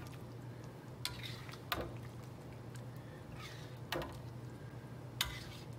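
Metal spatula stirring a soupy stew in a steel wok, scraping and knocking against the pan four times, over a steady low hum.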